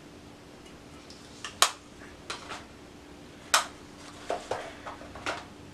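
Small hard plastic makeup items being handled: two sharp clicks, about a second and a half and three and a half seconds in, with several lighter taps and clicks between and after.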